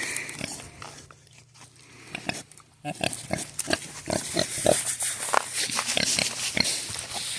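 Kunekune pigs grunting: a run of quick, short grunts that starts about three seconds in after a quieter moment.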